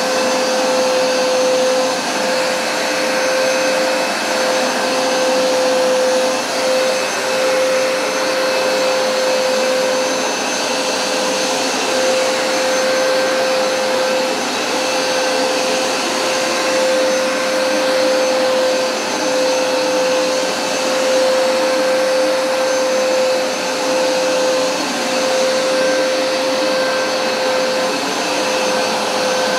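Hoover SmartWash Pet automatic carpet cleaner running continuously on carpet, its suction motor giving a steady whine of constant pitch over a rush of airflow.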